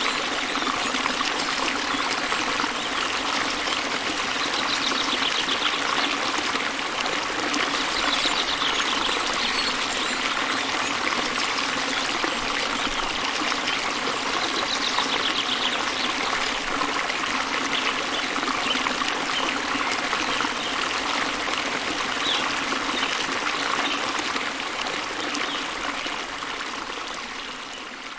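Waterfall water pouring and splashing in a steady rush, with faint high trills now and then. The sound fades out near the end.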